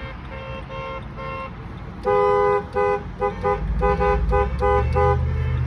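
Car horns honking from passing parade vehicles: three faint short toots, then about two seconds in a loud long honk followed by a quick string of short two-note toots. A low engine rumble from the passing vehicles builds in the second half.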